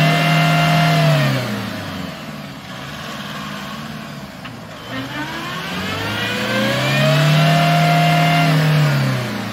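Mitsubishi L200 pickup's engine revved hard twice while the truck is bogged in deep mud, as the driver tries to power it out: held high at the start then dropping, and again rising about halfway through, held, and falling near the end.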